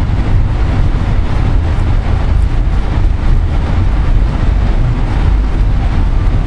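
Steady low rumble of a passenger train running along the track, heard from inside a Skyline dome car.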